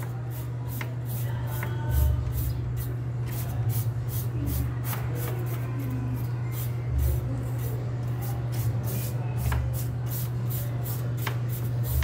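A flat scraper raking packed dust off the metal fins of a portable air conditioner's coil: a rapid run of short scraping strokes, about three or four a second, over a steady low hum, with a few soft thumps.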